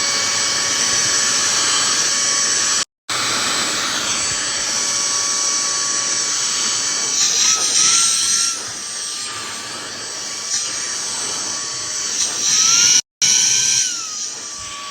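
Cordless stick vacuum cleaner's motor running with a high, steady whine on its second power level. Its pitch rises briefly about halfway through and again near the end, and the sound drops out for a moment twice.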